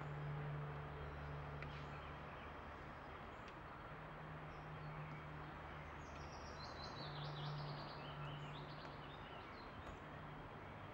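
A small bird singing a run of short high chirps that step down in pitch, starting about six seconds in, over steady outdoor background noise with a low hum.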